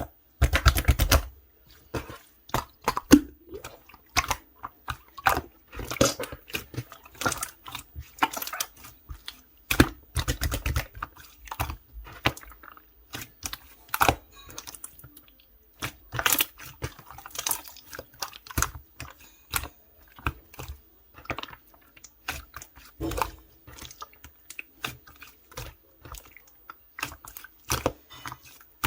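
Clear slime being squeezed, poked and folded by hand, giving a stream of irregular sticky clicks and small air-bubble pops. There are heavier, deeper squelches just after the start and again about ten seconds in.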